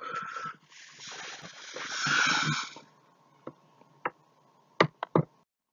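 A man's long, noisy breath, then several short, sharp clicks.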